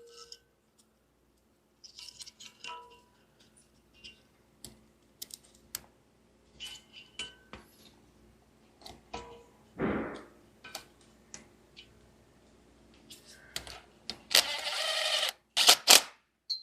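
Scattered small clicks, taps and clinks of plastic harness connectors, clips and metal parts being handled as a wiring harness is routed and fastened. There is a brief rushing sound about ten seconds in and a louder scraping rustle near the end.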